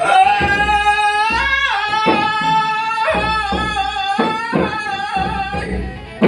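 A singer holds long, wavering notes of a Malay dendang melody, sliding down in pitch about a second and a half in, over regular drum strokes.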